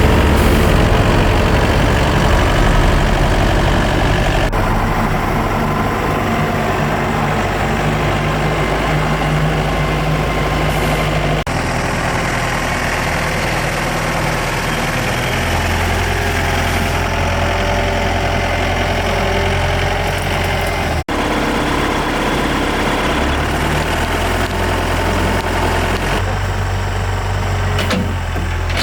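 Excavator's diesel engine running steadily, its low tone shifting abruptly a few times, with a brief dropout about two-thirds of the way through.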